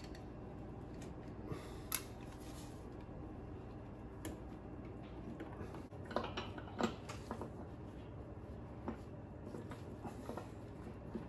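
Scattered light clicks and knocks of metal parts being handled while fitting a stern drive's gimbal housing on the transom, with a small cluster of knocks about six to seven seconds in, over a steady low hum.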